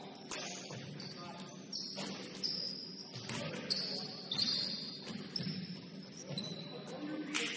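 Basketball shoes squeaking in short high-pitched chirps on a hardwood gym floor, with scattered thuds of a basketball bouncing.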